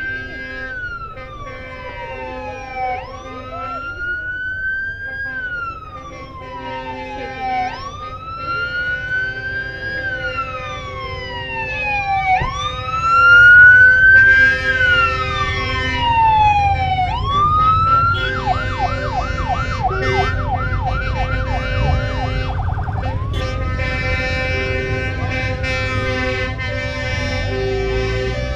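Police motorcycle escort siren wailing in slow rise-and-fall sweeps, about one every four to five seconds, loudest as a motorcycle passes about halfway through. About two-thirds of the way in it switches to a fast yelp for a few seconds, then goes back to the wail.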